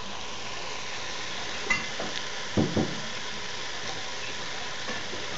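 Smoked turkey, chicken and split peas frying in a pot, a steady sizzle, with a few brief knocks near the middle.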